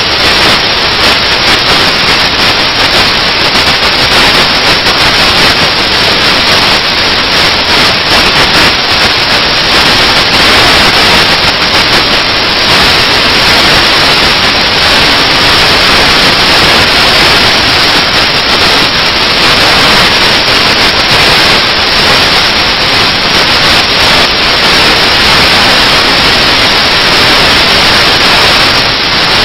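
A loud, steady, even hiss like static, unbroken and without speech.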